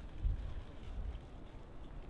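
Wind buffeting the microphone: an uneven low rumble that swells about a quarter second in.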